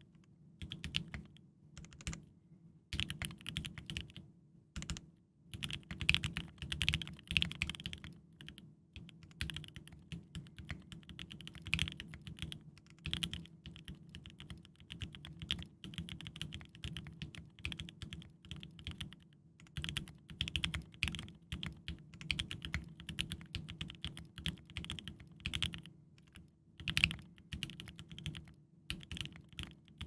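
Typing on a Think6.5 V2 aluminium 65% mechanical keyboard with lubed and filmed Mauve linear switches and PBT keycaps: a rapid, irregular run of keystrokes with a few brief pauses.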